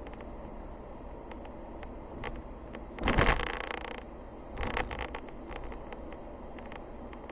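A car driving along a narrow paved mountain forest road: a steady low rumble with scattered small ticks and rattles, and two louder noisy surges, the first about three seconds in lasting about a second, the second shorter, about a second and a half later.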